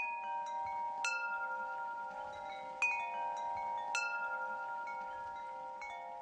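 Chimes ringing: metal tones struck every second or two, each strike leaving several clear pitches ringing on and overlapping the next.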